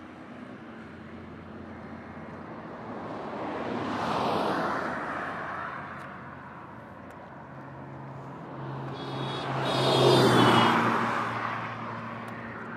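Road traffic on a highway: two vehicles pass by, swelling and fading, the first about four seconds in and a louder one about ten seconds in, over a steady low engine hum.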